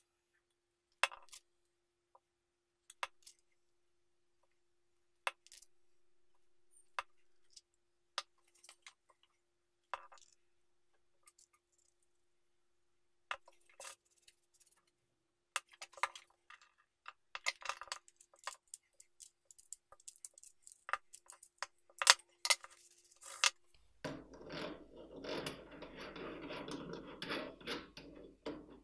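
Scattered light clicks and taps of wooden discs and a glue bottle handled on a workbench, then a run of denser scratching as sandpaper is rubbed over the stacked wooden disc drum. Near the end a steadier rushing noise comes in.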